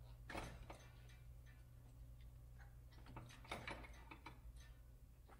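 Faint metallic clicks and scraping as the rear axle of a Ural sidecar motorcycle is worked out of the wheel hub with a tool. One cluster comes about a third of a second in and another about three seconds in, over a low steady hum.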